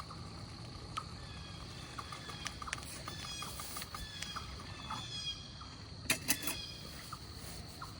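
Birds calling in a series of short, downward-sliding chirps over a steady high insect drone. A few sharp clicks come about six seconds in.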